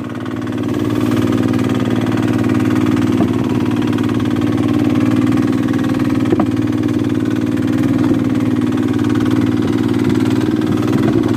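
A fishing boat's engine running steadily, with a strong even hum that picks up slightly about a second in, and a few faint knocks on board.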